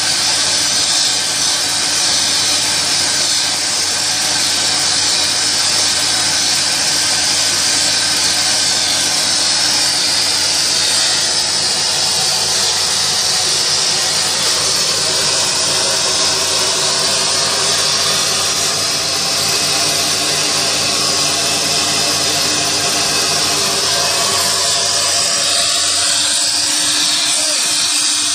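Plasma torch of a CNC pipe profile cutting machine cutting through a steel pipe, a loud steady hiss that runs on without a break, with a faint steady hum beneath it.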